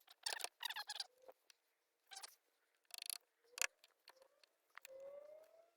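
Short scraping strokes of a hand tool shaving wood, several quick rasps then a few single strokes, taking down high spots in a recess cut for a fence latch.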